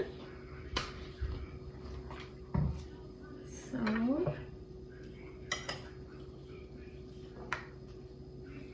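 Metal spoon clinking against a ceramic bowl while a salad is tossed: a few sharp clinks spaced a second or two apart.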